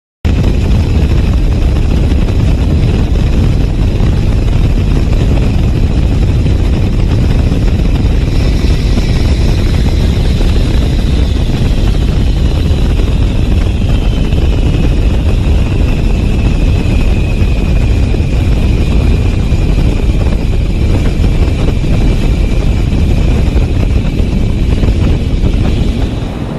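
Loud airflow and jet engine noise around a large jet's main landing gear during a touch-and-go: a steady heavy rumble, with a high engine whine that slides down in pitch from about ten seconds in.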